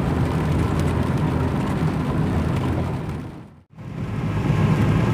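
Car driving on a wet road, heard from inside the cabin: steady low engine and tyre noise. It cuts out abruptly for a moment about three and a half seconds in, then resumes.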